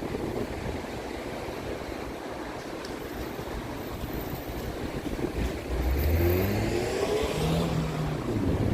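A vehicle engine accelerating, its pitch rising, starting about two-thirds of the way in, over a steady low rumble of wind on the microphone.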